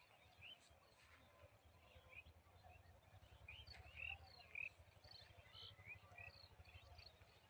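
Faint birdsong: many short chirps and tweets from several birds, scattered throughout, over a low steady rumble.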